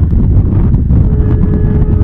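Passenger train running at speed, heard from a coach's open door or window: a loud, even low rumble with wind rushing over the phone's microphone. A faint steady tone comes in about a second in.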